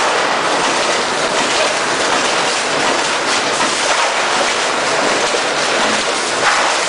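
KingJime rotary shear cut-to-length line running, thin sheet metal feeding through and being cut to length. It makes a loud, steady mechanical clatter and hiss, with a few sharper clacks.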